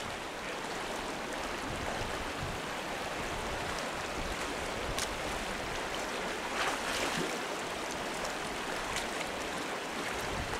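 Shallow, stony mountain stream running, a steady rush of water over stones, with a few faint brief ticks on top.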